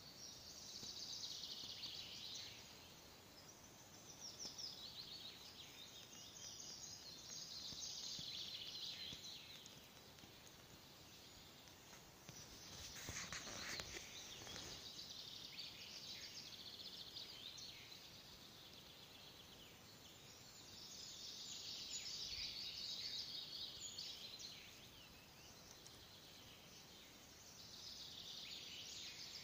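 Red-breasted flycatcher singing faintly: about five high song phrases, every several seconds, each a quick run of notes that falls toward its end. A brief rustling noise about halfway through.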